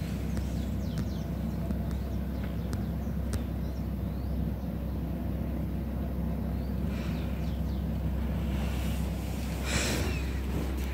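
Steady low rumble of city ambience and distant traffic, with a few faint high chirps. Near the end comes a brief rustle as the phone is moved.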